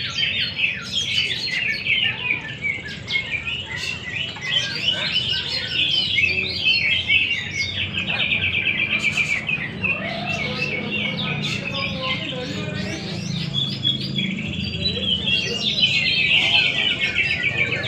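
Many caged greater green leafbirds (cucak ijo) singing at once in competition: a dense, unbroken tangle of fast chirps and warbled phrases, busiest near the end.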